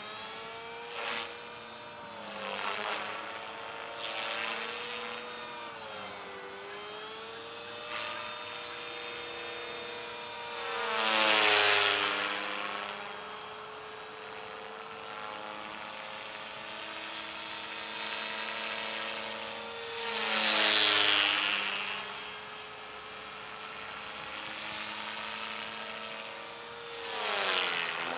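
Align T-Rex 450 Sport electric RC helicopter in flight: a steady rotor buzz with a high motor whine, its pitch wavering as it manoeuvres. It swells loud three times, about a third of the way in, about two thirds in and near the end, as it passes close, and the pitch drops as it goes by.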